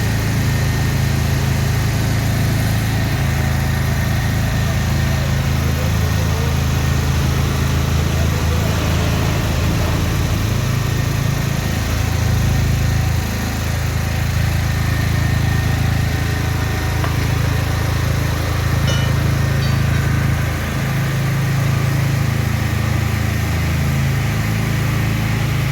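An engine running steadily at a constant speed, with a deep, even hum.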